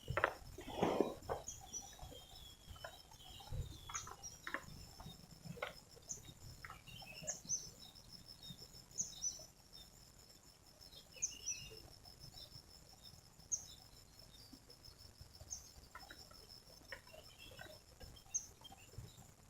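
Faint forest ambience: a steady high-pitched insect-like drone with a short bird chirp repeating every second or two, and scattered light knocks and rustles.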